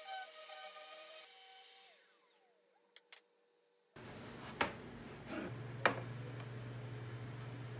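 DeWalt random orbital sander running on a wooden tabletop, then switched off and spinning down with a falling whine about two seconds in. Later, two sharp wooden knocks as pieces of a wooden jig are set against each other, over a steady low hum.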